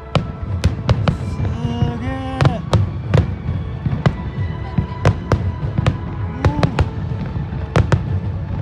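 Fireworks display: a dense barrage of aerial shell bursts, sharp bangs coming several times a second without pause.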